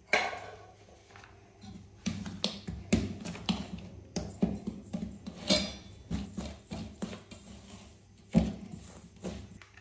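Utensil clatter against a bowl: a sharp knock at the start, then a string of irregular clinks and scrapes, a few a second, with a louder knock near the end, as a freshly cracked egg is stirred into the dry mandazi flour mix.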